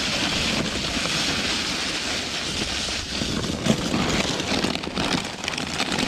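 Snowcaster snow pusher's 36-inch blade scraping steadily along a sidewalk as it pushes snow.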